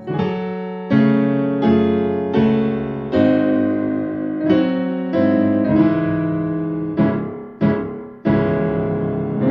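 Solo piano music: a slow sequence of chords, each struck and left to ring and fade before the next.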